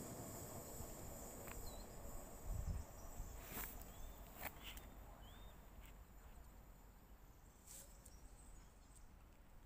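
Faint outdoor field-recording ambience from dry Mediterranean scrub: a steady high hiss with a few short high chirps, a handful of sharp clicks and a soft low thump about two and a half seconds in, slowly getting quieter.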